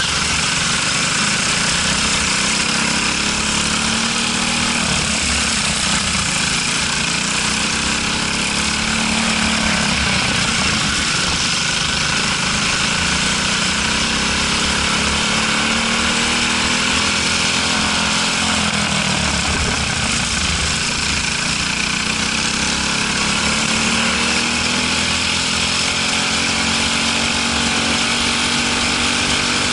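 Briggs & Stratton LO206 single-cylinder four-stroke kart engine heard from on board at racing speed. It rises in pitch under acceleration and drops back off the throttle for the corners several times, over a steady rush of noise.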